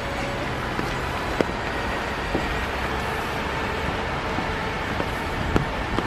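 Steady rain falling on leaves and a wet boardwalk over a constant low rumble, with a few sharp drop hits, the loudest about a second and a half in and again shortly before the end.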